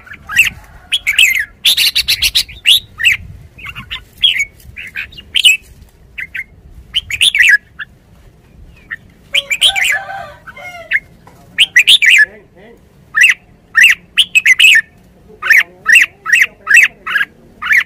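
A caged red-whiskered bulbul calling: short, sharp notes in uneven bursts, ending in a fast run of repeated notes, about two or three a second.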